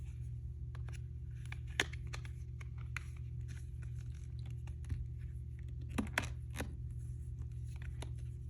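A plastic phone case being handled and fitted onto an iPhone 15 Plus: small clicks and rubbing, with a sharper click about two seconds in and a few more around six seconds in, over a steady low hum.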